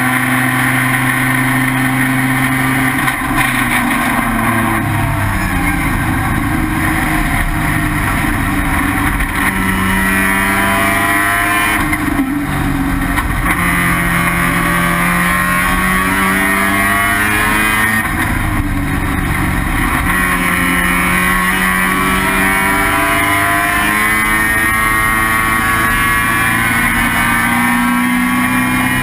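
Race car's 12A rotary engine (first-generation Mazda RX-7, IT7 class) running hard under racing load. Its pitch climbs in long pulls and drops back sharply every several seconds, with one bigger drop a few seconds in.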